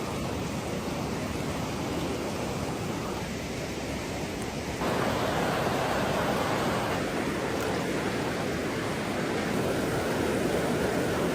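Mountain creek rushing steadily over rocks, a dense hiss of running water that gets louder about five seconds in.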